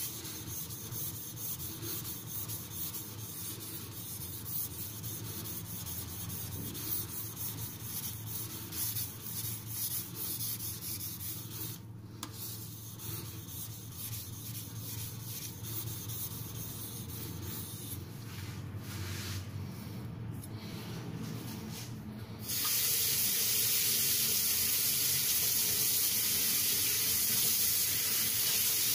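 Shirogami carbon-steel nakiri blade scraping back and forth in slurry on a wet King 6000-grit whetstone, repeated sharpening strokes that remove the burr raised on the 1200 stone. About 22 seconds in, a water tap starts running with a steady hiss.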